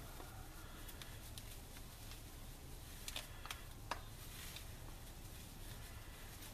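Faint crinkling and crackling of a stainless steel scouring pad squeezed and turned in the hands, with a few sharper crackles about three to four seconds in, over a steady low hum.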